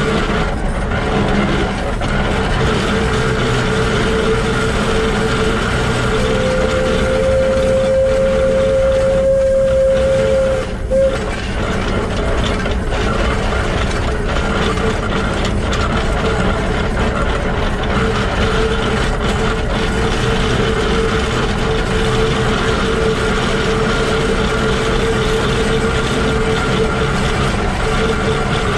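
Shay geared steam locomotive SL-31 running along the track, heard close to its truck: the bevel gears and wheels turn with a steady mechanical clatter and rumble. About six seconds in, a single steady whistle tone sounds for about four seconds, then a short toot.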